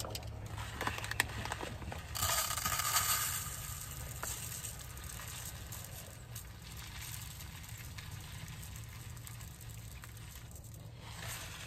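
Plastic bag of dry rice crinkling and rustling as rice is scooped out of it, loudest for a second or two about two seconds in, then softer, over a low steady hum.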